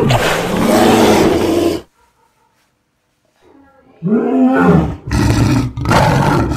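Loud animal roars: one long roar, a gap of about two seconds, then three shorter roars in quick succession.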